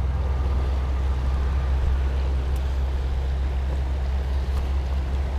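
Steady low rumbling rush of a flowing river.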